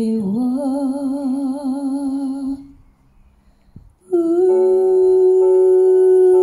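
A woman singing with a backing track: a long held note with vibrato that stops about two and a half seconds in, then after a short pause a second long note held steadily.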